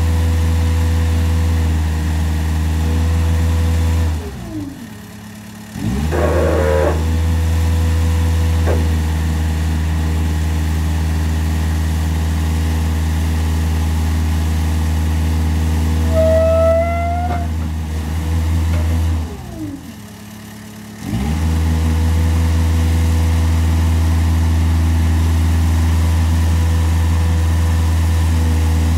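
Haulotte HA12PX articulated boom lift's engine running steadily while the boom is worked. Twice its speed sags away and picks back up, and a brief rising whine comes partway through.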